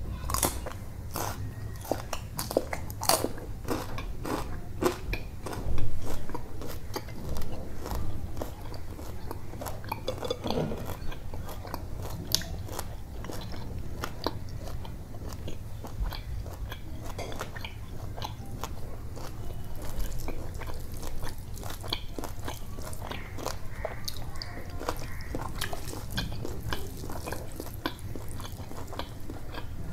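Close-miked biting and chewing of fried fish, with many sharp crunches and wet mouth clicks; the loudest bites come about six to eight seconds in. Near the end, fingers squish rice and curry together on the plate.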